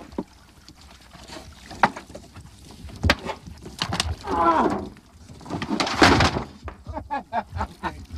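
Water splashing and scattered knocks against a dive boat as divers surface and climb aboard, with short indistinct voices.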